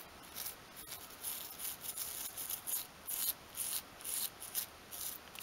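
Toothbrush bristles scrubbing a small miniature heater model wet with soapy water, in short quick strokes about two or three a second.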